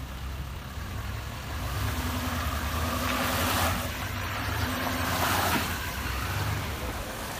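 GMC Sierra Denali HD pickup truck engine running as the truck drives up the boat ramp past the camera, a steady low hum with two louder rushing swells about three and five seconds in.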